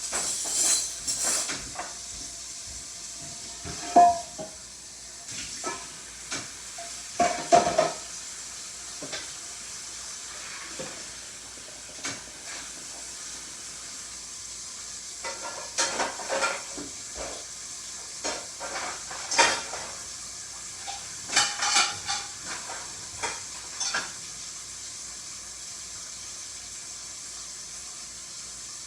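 Irregular handling noises: short rustles, soft clicks and squelchy bursts coming in scattered clusters over a steady hiss.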